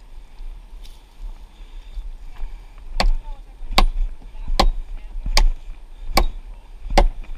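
Chopping blows of an axe into the wood of a fallen ponderosa pine. They begin about three seconds in and come at an even pace of about one every 0.8 seconds, six strikes in all.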